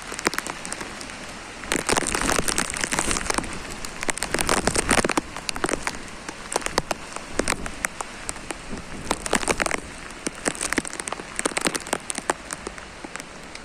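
Heavy rain pouring onto hard surfaces, dense with close, sharp drop splashes; it swells louder about two seconds in and again around four to five seconds.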